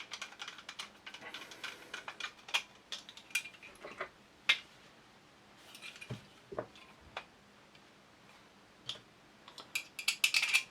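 Small steel parts and screws of a Sjogren shotgun clicking and clinking as they are handled during reassembly: irregular light clicks and taps, a few ringing briefly, with a quick run of them near the end.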